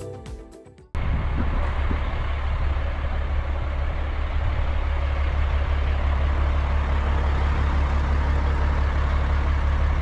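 Background music fading out, then a sudden cut to a vehicle engine running steadily with a strong low hum.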